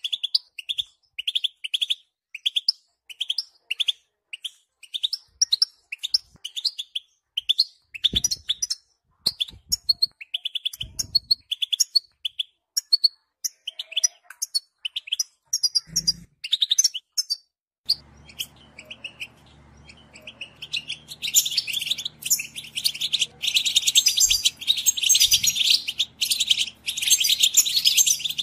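European goldfinch calling: a regular series of short chirps, about two a second, of the kind trappers call 'betbeta'. They grow irregular after about eight seconds. From about eighteen seconds a low hum comes in, and a dense, louder goldfinch twittering takes over.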